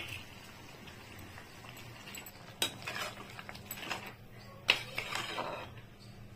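A metal ladle knocking twice against a metal pot of soya chunk curry, each knock followed by about a second of scraping and stirring.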